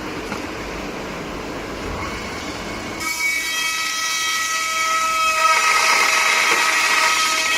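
Automatic burr-free metal cutting machine running with a steady mechanical noise. About three seconds in, a high ringing squeal of several steady tones starts and grows louder as the cutter works the metal.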